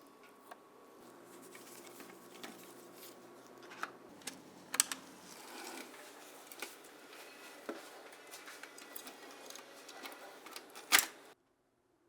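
Small, light clicks and taps from handling a diecast model car and its parts, scattered irregularly, with a sharper click near the middle and another near the end before the sound cuts off.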